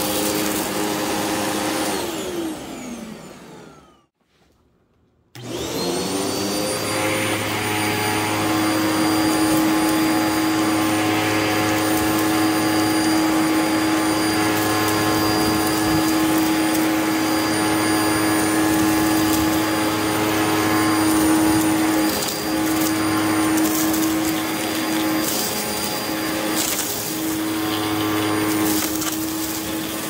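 Hoover WindTunnel upright vacuum cleaner running on carpet. About two seconds in it is switched off, winds down and falls silent, then about five seconds in it is switched back on, its motor whining up to speed and settling into a steady run with a strong hum. In the last part, bits of debris click and crackle as they are sucked up.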